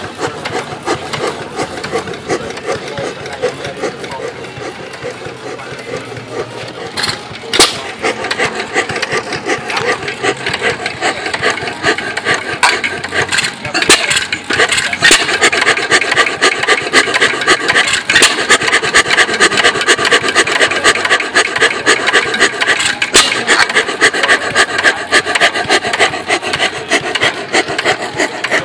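Foos Junior 4 hp hit-and-miss engine running, its moving parts making a fast, dense mechanical clatter with occasional single louder knocks a few seconds apart. The clatter grows louder about seven seconds in.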